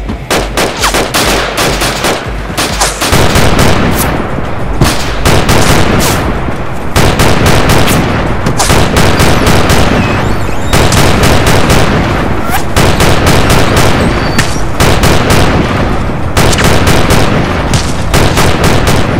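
Automatic gunfire: a machine gun firing rapid shots in long bursts, with brief pauses between bursts.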